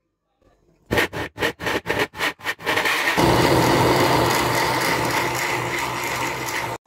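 Electric blender grinding boiled hibiscus flowers and water into a paste: a rapid string of short bursts, about six a second, then running steadily for about three and a half seconds before cutting off suddenly.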